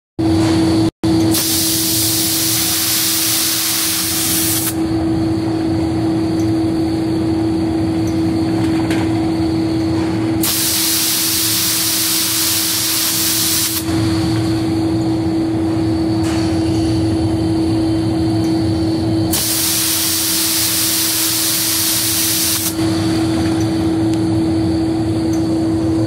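Pneumatic automatic paint spray guns on a glass bottle painting line firing in three hissing bursts, each about three and a half seconds long and roughly nine seconds apart. Between and under the bursts, the line's machinery gives a steady hum.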